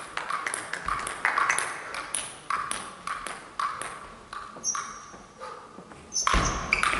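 Celluloid-type table tennis ball clicking: a string of short, sharp pings as it bounces on the table, floor and bat, one to three a second. A louder, heavier knock about six seconds in as play starts.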